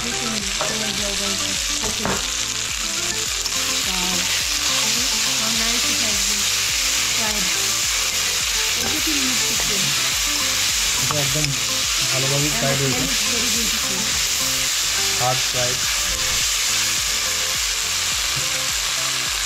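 Vegetables frying in oil in a stainless-steel wok with a steady sizzle, stirred and tossed with a metal spatula.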